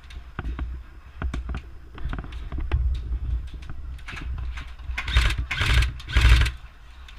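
Scattered sharp clicks and pops of airsoft gunfire, with three louder bursts close together about five to six and a half seconds in, over a steady low rumble.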